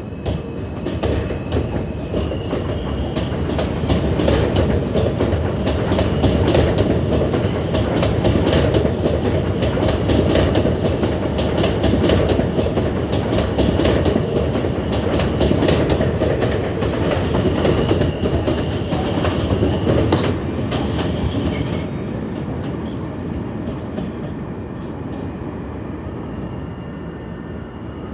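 Subway train running along elevated steel track, its wheels clacking rapidly over rail joints and switches, loud through the middle and fading away over the last several seconds. A brief high wheel squeal comes about two-thirds of the way through.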